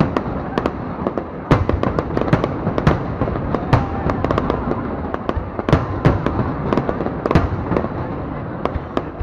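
Fireworks display: a rapid, irregular string of sharp bangs and crackles over a continuous rumble of more distant bursts.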